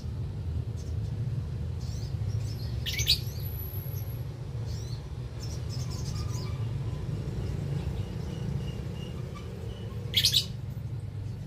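Lovebirds chirping, with two sharp, loud calls, one about three seconds in and one near the end, and fainter chirps between, over a steady low hum.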